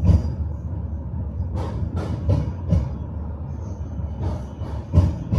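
Tram running on its rails with a steady low rumble, the wheels knocking over rail joints: a clack near the start, a quick run of four clacks around two seconds in and a loud one about five seconds in.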